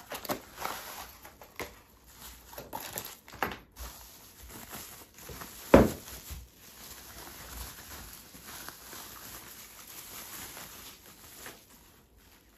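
Plastic packaging and bubble wrap crinkling and rustling as a small parcel is unwrapped by hand, with one louder knock about six seconds in.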